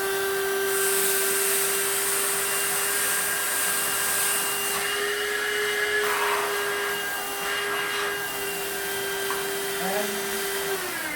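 12-volt car vacuum cleaner running with a steady high motor whine and airflow hiss while it sucks pulses up through its extension hose, with some scattered rattling. Near the end it is switched off and the whine falls away.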